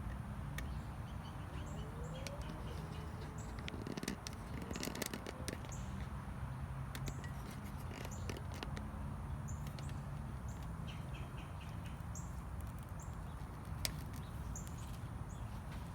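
Birds chirping, short high chirps scattered throughout, over a steady low hum, with a few sharp clicks and rustles.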